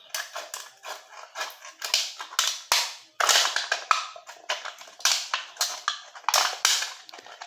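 Thin aluminium of a beer can being cut into strips: an irregular run of sharp snips and metallic crinkles.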